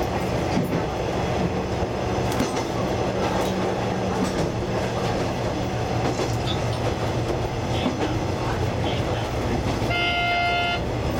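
Diesel railcar's engine idling with a steady low hum while the train stands at a station. About ten seconds in, a short pitched tone sounds for under a second.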